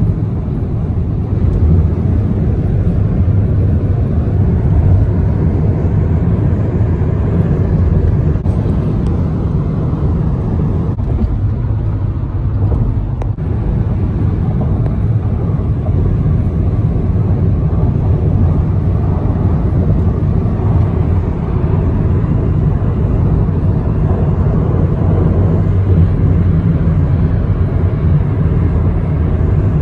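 Road noise inside a car cabin at freeway speed: a steady low rumble of tyres and engine, with a brief change about halfway through.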